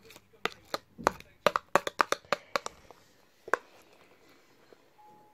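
A spoon tapping and knocking in a bowl of thickened hand-soap slime: a quick run of sharp taps, about three or four a second, then one last louder knock about three and a half seconds in.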